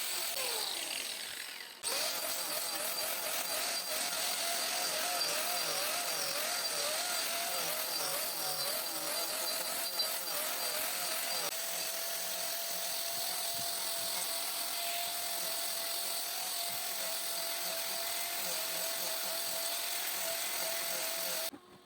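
Handheld electric power tool running steadily with a wavering pitch. Just before two seconds in it winds down and starts again abruptly, and it stops shortly before the end.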